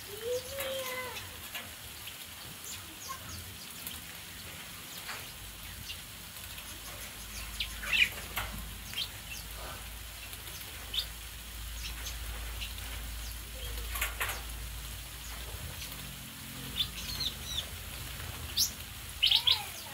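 Small aviary birds giving scattered short chirps and calls, coming more often near the end.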